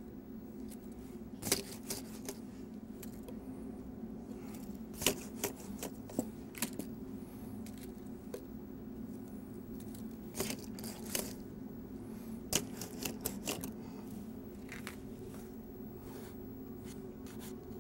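Irregular soft clicks, taps and rustles of shadow puppets being handled and set in place behind the screen, over a steady low hum.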